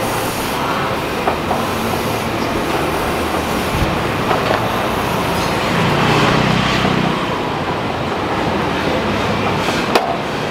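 Steady rushing hiss of steam escaping from a scholar-cake steamer pot, with a low hum underneath and a sharp click near the end.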